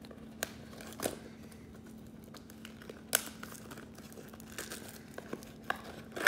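Trading card packaging being handled and opened: wrappers crinkling and tearing, with a few sharp snaps, the loudest right at the end.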